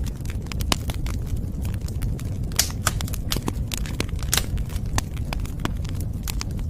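Wood fire burning, with frequent irregular sharp crackles and pops of the burning wood over a steady low rumble.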